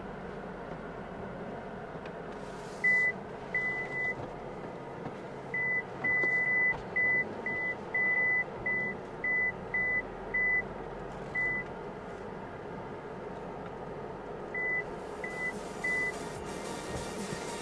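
Short electronic beeps at a single high pitch, in irregular runs of about eighteen with a few seconds' pause in the middle, from the MG Gloster's parking sensors warning of obstacles close by as the SUV crawls over rough ground. A low steady vehicle hum runs underneath.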